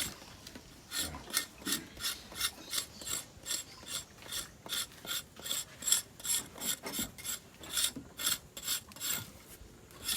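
Outer bark of a cinnamon stem being scraped off in quick, repeated rasping strokes, about three a second. This is the cleaning of the dirty first layer before the inner bark is peeled.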